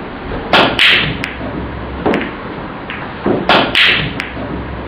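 Pool balls clacking on a pool table: a loud double clack about half a second in, scattered single knocks, then another loud pair of clacks about three and a half seconds in.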